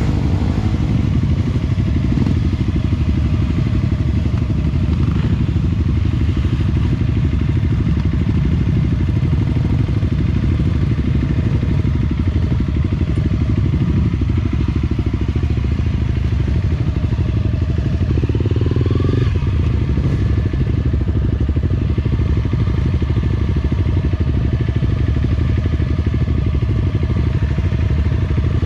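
Enduro motorcycle engine running steadily at low revs while the bike creeps along in slow, stop-and-go trail traffic.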